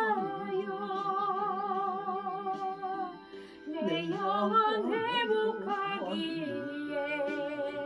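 Gospel song: a singer holding long notes with a wide vibrato over a keyboard accompaniment track, with a brief pause about three seconds in.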